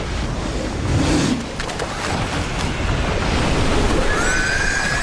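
Loud rush and crash of a flood wave surging down a river, a thick, continuous roar of churning water with a swell about a second in. Near the end a high, drawn-out cry rises over it.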